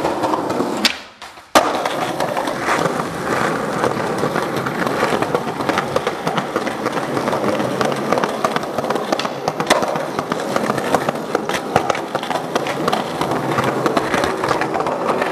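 Skateboard wheels rolling on smooth concrete, a steady rumble dotted with frequent small clicks and knocks, with one sharp click about a second in.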